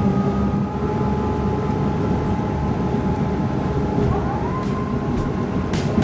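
City bus running, heard from inside the cabin: a steady low engine and road rumble with a held whine, which glides up in pitch about four seconds in.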